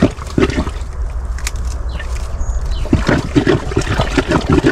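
Water sloshing and splashing as hands work in a flooded eel hole, with irregular splashes thickening from about three seconds in over a steady low rumble.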